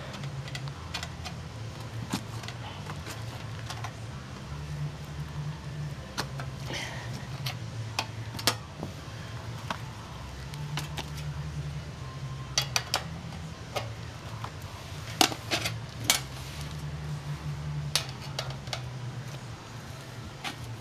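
Scattered light metallic clinks and taps from handling a steel 5.45x39 ammo spam can and its opener, over a steady low hum.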